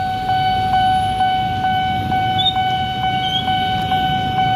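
Railway level-crossing warning alarm sounding: a steady electronic tone with a click repeating about twice a second, which means a train is approaching. Road traffic idles underneath as a low rumble.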